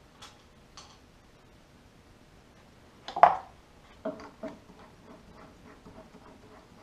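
Hands handling small metal parts at a drill press chuck: two light clicks, then one loud knock about three seconds in, a few lighter knocks about a second later, and soft regular ticking to follow.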